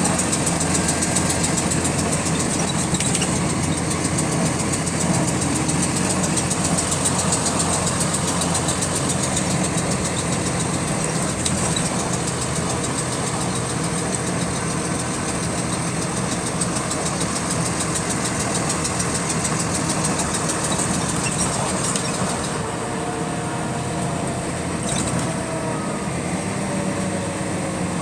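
Bus engine running steadily, with a fast, repetitive clicking that keeps time with engine speed. Its cause is unknown.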